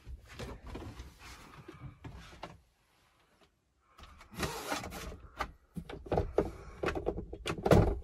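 Clicks, knocks and clatter of doors, latches and fittings being shut inside a motorhome, with a louder thump near the end.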